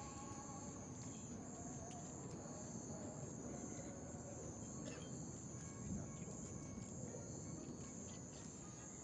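Night insects chirring in a steady high-pitched drone over a low background rumble, with one faint dull thump about six seconds in.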